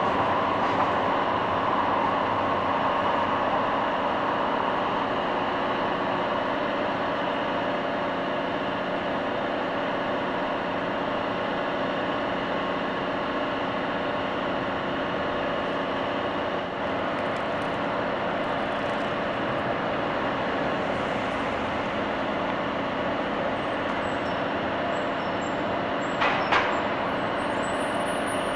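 Steady downtown street noise with a constant mechanical hum, as light rail trains roll slowly in along the street track. Two short sharp sounds come near the end.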